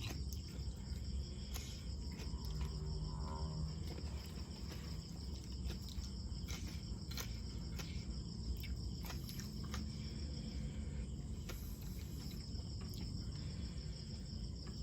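Insects trilling steadily on one high note, with a short break in the second half. Scattered sharp clicks and smacks of someone eating and chewing run over it.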